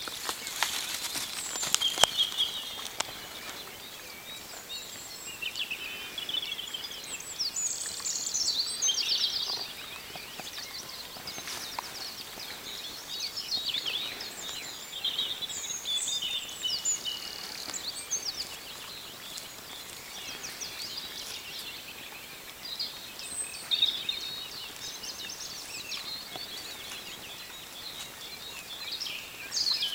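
Wild songbirds singing and twittering, many short high phrases overlapping through the whole stretch, over a steady outdoor hiss. A few sharp clicks come in the first two seconds, the loudest about two seconds in.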